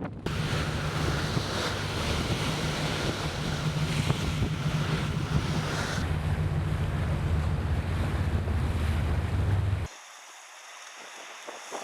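Wind buffeting the microphone at sea over a steady low rumble and water noise. About ten seconds in it cuts off suddenly to a much quieter hiss.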